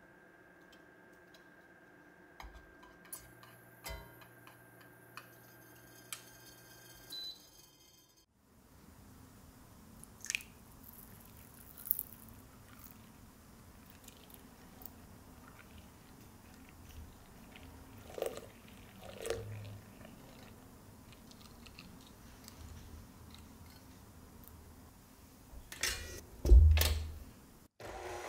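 Kitchen handling noises: scattered soft clicks and taps, then separate knocks of a glass stand-mixer bowl and its wire whisk, the loudest a heavy knock near the end.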